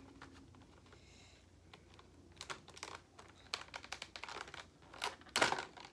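Plastic packaging being handled: a run of light clicks and crackles as a clear plastic cover is worked off a black plastic tray. They start about two seconds in and grow denser and louder near the end.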